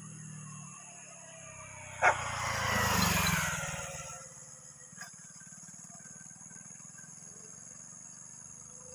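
A motorcycle passes close by, its engine sound swelling and fading away over about two seconds, with a single sharp dog bark just as it approaches. Insects chirp steadily in the background.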